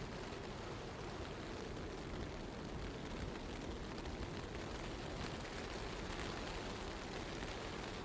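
Steady rushing noise of a blizzard in a city, with a low rumble underneath and no distinct events.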